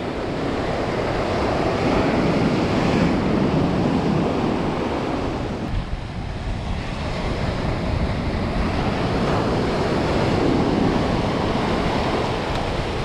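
Ocean surf breaking and washing up the beach, with wind buffeting the microphone; the wash swells louder twice, a few seconds in and again past the middle.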